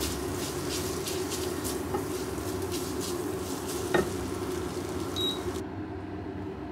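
Spaghetti sizzling in a frying pan as it is tossed and stirred with tongs, with a sharp click of the tongs about four seconds in. The sizzling and stirring stop a little after five seconds, leaving a steady low hum.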